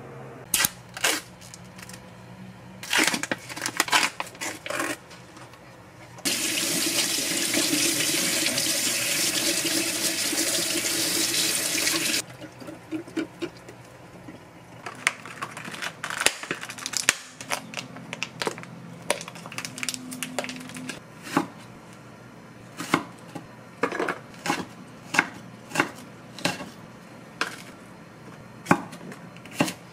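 Water running from a tap for about six seconds, starting about six seconds in and cutting off suddenly. Around it are scattered short clicks and knocks of things being handled.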